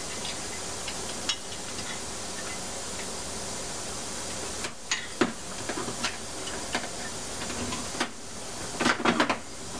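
Light metallic clicks and clinks of outboard crankshaft main-bearing parts being pulled apart and handled, a few around five seconds in and a cluster near the end, over a steady hiss.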